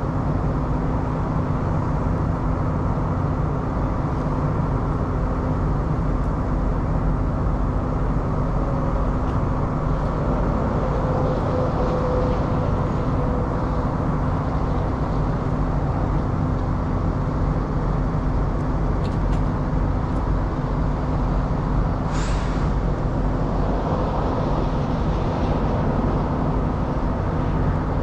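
Heavy diesel engine idling steadily, a low drone with a constant pitch. A brief high hiss cuts in near the end.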